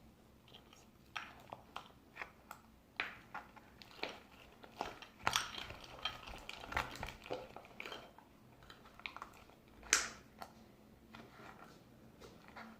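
A utensil clicking and scraping against a container while slime is being mixed, in irregular light taps, with one louder knock about ten seconds in.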